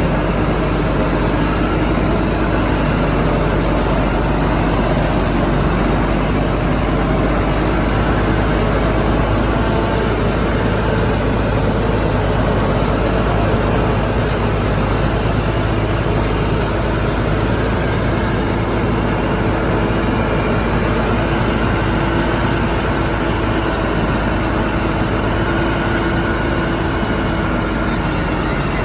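Shantui bulldozer's diesel engine running steadily and loudly, its pitch drifting slightly up and down.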